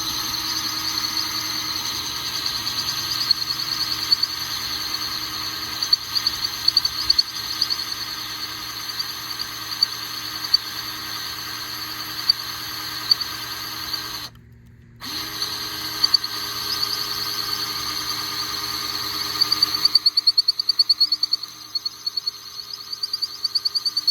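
Electric drill spinning a diamond hole saw bit that grinds through the wet ceramic bottom of a flower pot: a steady high whine, stopping briefly about 14 seconds in and then starting again. In the last few seconds it turns into a fast rattling chatter as the bit gets through the ceramic.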